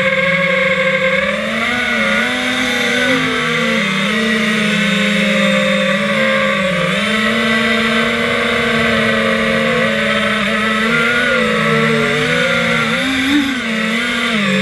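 FPV quadcopter's electric motors and propellers whining loudly, as heard from the onboard camera, the pitch wavering up and down with the throttle and dipping briefly about two thirds of the way in.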